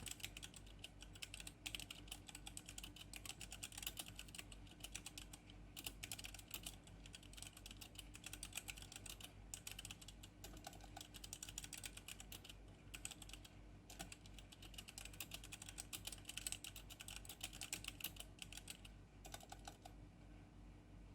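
Typing on a Geek GK64 hot-swappable mechanical keyboard: fast runs of key clicks broken by brief pauses, stopping shortly before the end.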